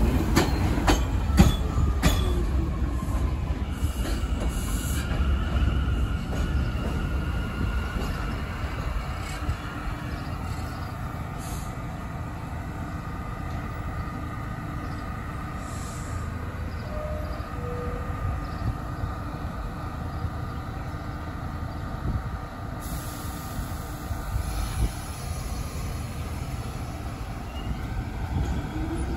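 New York City Subway A train pulling out and away along the platform. Quick wheel clicks over the rail joints as the cars pass close at the start, then a steady rumble that fades as the train recedes, with a thin, high wheel squeal running through most of it.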